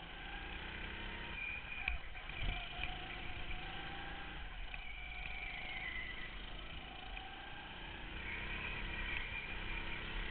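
Go-kart engine running hard at speed, heard from on board, its pitch rising and falling as the kart accelerates and lifts through the corners. There are a couple of low thumps about two seconds in.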